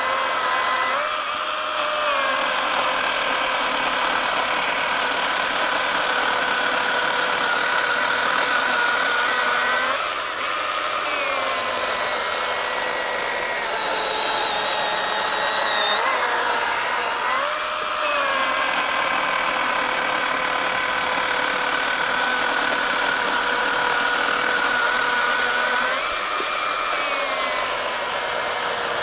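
Milwaukee M18 FUEL 2727 cordless chainsaw's brushless motor running at full speed while cutting through a wet oak log, a steady whine. Its pitch dips several times as the chain bites deeper into the wood, then climbs back.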